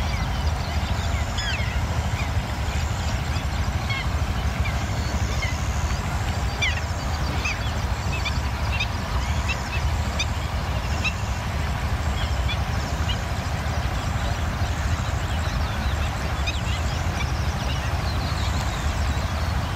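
Outdoor ambience of many small birds chirping and calling in quick, scattered notes over a steady low rumble.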